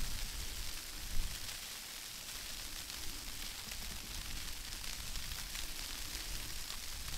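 Steady outdoor hiss with a low, uneven rumble underneath, and one brief bump about a second in.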